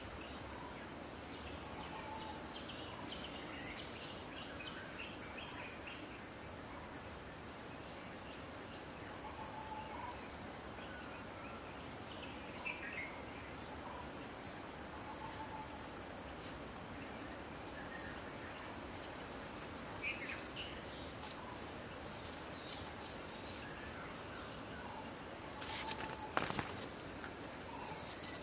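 Steady high-pitched insect chorus, with short bird calls scattered through it and a brief sharp click near the end.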